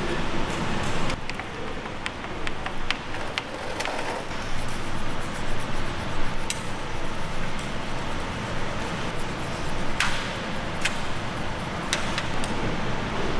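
Metal scraper rasping across the deck of a BMW engine's cylinder block, cleaning off old head-gasket residue, with a few sharp metal clicks and taps along the way.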